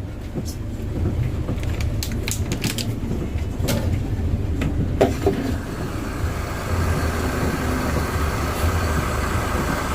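Bus engine running steadily, heard from inside the cabin as a low hum. There are a few scattered clicks early on, and a hiss comes in about six seconds in.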